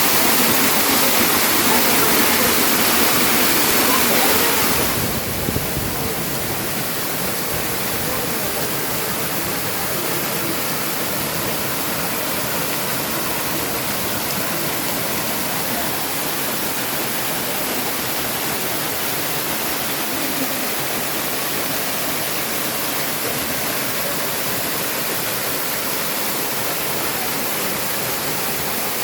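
Waterfall rushing, a steady wash of falling water; it becomes somewhat quieter about five seconds in and stays even after that.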